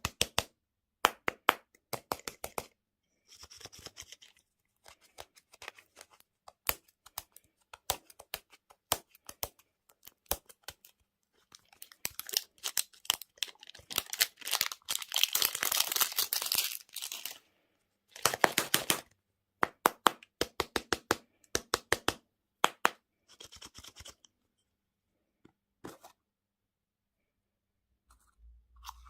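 Plastic candy and toy packaging being handled and torn open: sharp crinkles and clicks, with a longer stretch of dense tearing and rustling about halfway through, then only a few faint clicks near the end.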